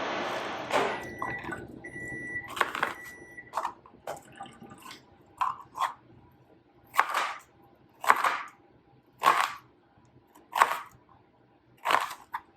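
Kitchen knife chopping an onion on a cutting board: single sharp chops about a second apart, some in quick pairs.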